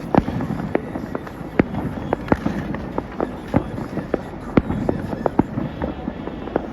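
Distant fireworks display: irregular sharp bangs, one or two a second, echoing over a steady low rumble.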